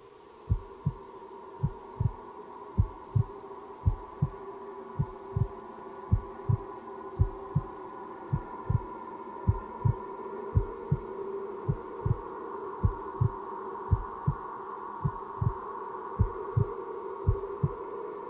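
Heartbeat sound effect, a low double thump (lub-dub) repeating about once a second, over a steady sustained drone.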